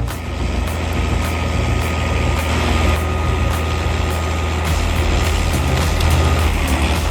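A heavy machine's engine running steadily, with a steady high whine for most of the stretch, under background music with a regular beat.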